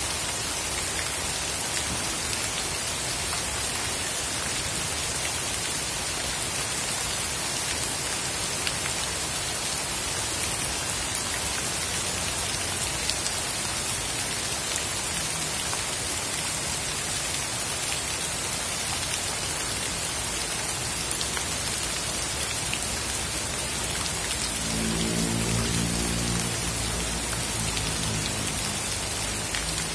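Heavy rain pouring steadily onto a flooded path and leaves, a dense even patter of drops on standing water. Near the end a low droning tone swells in for a few seconds over the rain.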